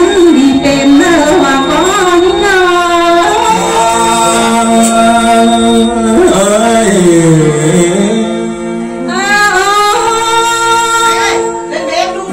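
Thái ethnic folk singing into a microphone: one voice at a time holding long notes that slide and waver. Around the middle a lower voice takes over, and a higher one returns near the end.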